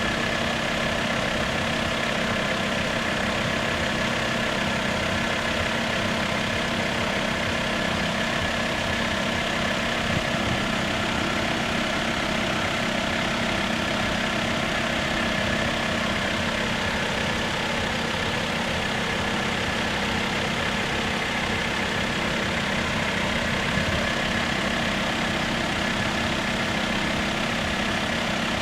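Heavy engine idling steadily, an unchanging hum with a high steady tone above it.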